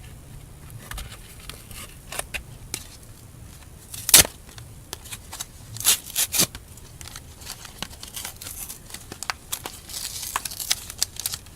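Foil wrapper of a Pokémon card booster pack crinkling and tearing as it is opened by hand. Sharp crackles come scattered throughout: the loudest about four seconds in, a cluster around six seconds, and denser crinkling near the end.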